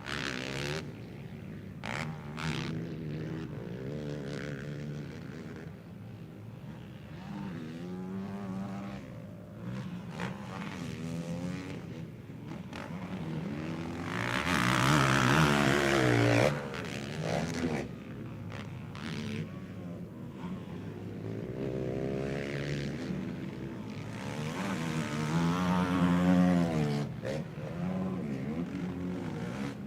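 Racing quad bike (ATV) engines revving up and down as riders pass and shift, several engines overlapping. The loudest is a close pass about halfway through, which drops away suddenly.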